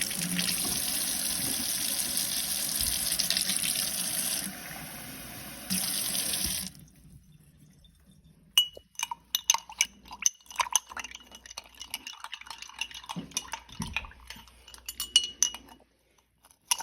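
Water running from a kitchen tap into a sink for several seconds, dropping lower for about a second before coming back, then shut off. After a short pause comes a long run of light clinks of utensils against glassware and dishes.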